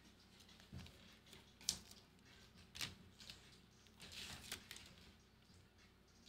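Quiet handling of trading cards: a few sharp clicks and light rustles, the loudest click a little under two seconds in, with a cluster of rustling and clicks past the middle.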